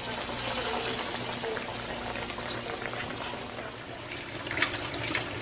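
Fish and French fries frying in hot grease: a steady sizzle with scattered small crackles.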